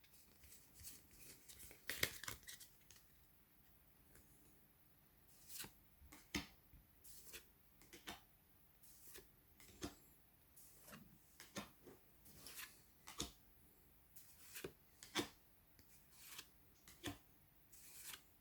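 Faint, irregular scrapes and flicks of Pokémon trading cards being slid off one another as a freshly opened booster pack is sorted through.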